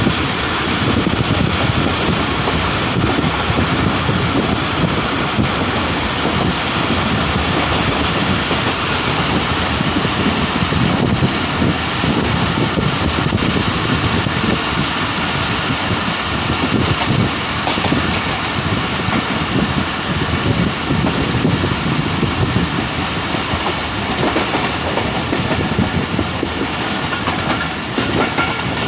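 45 Up Pakistan Express passenger train running along the track: a steady, loud rumble and rattle of wheels on rails.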